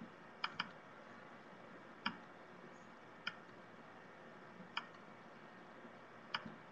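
Faint, sharp clicks at uneven intervals, a quick double click near the start and then single clicks every second and a half or so, over low steady hiss.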